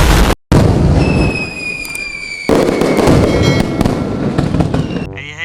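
Loud fireworks-like crackling noise with a falling whistle, cutting out briefly near the start and flaring again halfway through, over background music.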